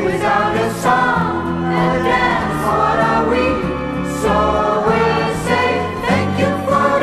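A song: several voices singing together over instrumental accompaniment.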